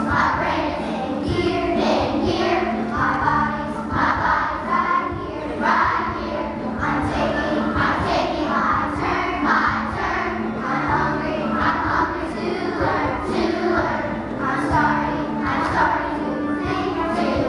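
A large group of third-grade children singing a song together.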